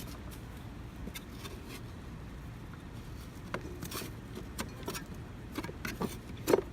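A masonry finishing tool scraping caked grass clippings out of the underside of a mower deck, heard as a string of short scrapes and knocks, the loudest near the end, over a low steady background rumble.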